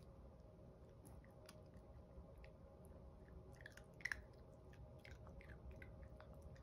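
Chihuahua puppies eating dry kibble: faint, scattered crunches and clicks of chewing, with a sharper crunch about four seconds in.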